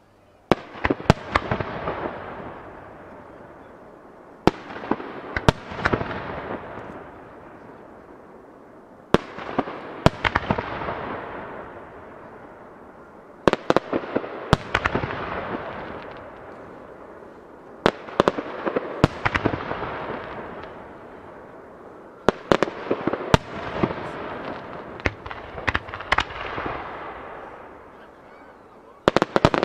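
Aerial firework shells bursting: a cluster of sharp bangs about every four seconds, each cluster followed by a long crackling echo that fades away before the next.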